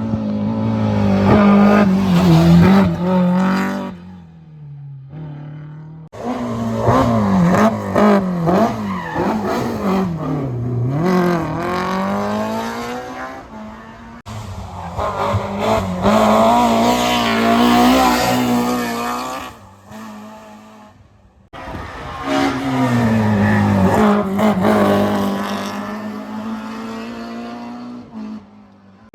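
BMW M3 E30 rally car's S14 four-cylinder engine driven hard, its pitch climbing and dropping with throttle and gear changes. It comes in several runs separated by brief lulls, one of which ends abruptly.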